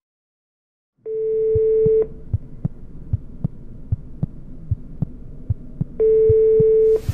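Telephone ringback tone heard by the caller: two one-second rings about four seconds apart, a call ringing unanswered before it goes to voicemail. Underneath runs a steady heartbeat-like double thump.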